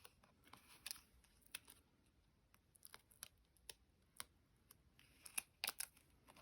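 Faint, scattered small clicks and rustles of card and paper pieces being handled at a craft desk, with a few sharper ticks near the end.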